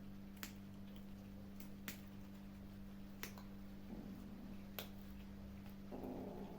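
Kittens crunching food: four sharp crunches about a second and a half apart, over a steady low hum.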